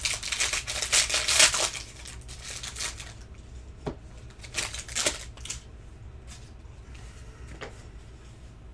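Foil trading-card pack being torn open and crinkled, with dense crinkling for about the first two seconds. After that come scattered soft rustles and clicks as the wrapper and cards are handled.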